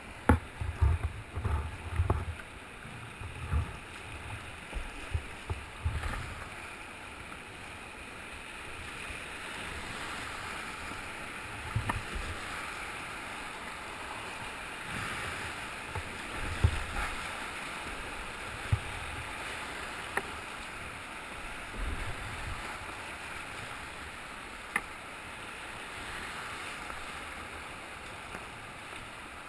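Whitewater rapids rushing steadily around a kayak, with scattered low thumps, most of them in the first six seconds.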